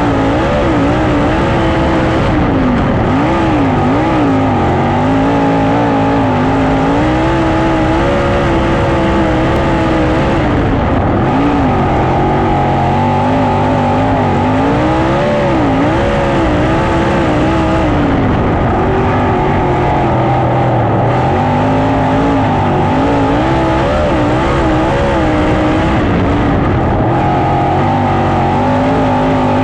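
Sprint car's V8 engine heard from on board while racing laps on a dirt oval. It runs at high revs, with its pitch dipping and climbing back every few seconds.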